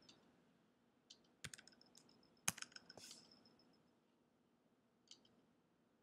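About half a dozen faint clicks of computer keys and mouse buttons being pressed, the sharpest about two and a half seconds in and the last about five seconds in.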